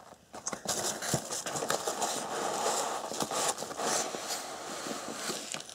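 Hands rummaging through foam packing peanuts in a cardboard shipping box: a steady rustling with many small clicks as the peanuts shift and rub against the cardboard, while a small cardboard box is worked out from among them.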